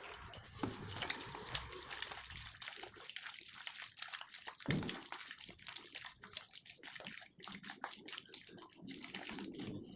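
Mutton curry cooking in a pan: wet, irregular crackling and sloshing, with a sharper knock about halfway through and a faint steady high whine underneath.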